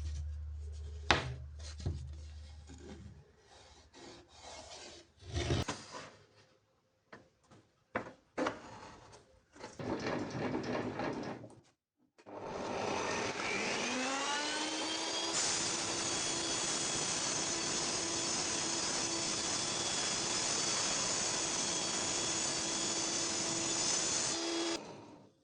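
Workshop handling noises, scattered knocks, clicks and rubbing on wood, then an electric power tool spins up, its pitch rising over about two seconds, runs steadily for about nine seconds, and stops near the end.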